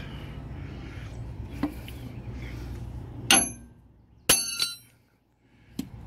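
Steel hub-cap wrench clanking against a trailer wheel hub: two sharp metallic clanks with a bright ringing tail, about three and four seconds in, with a fainter click before and after, over a steady low hum.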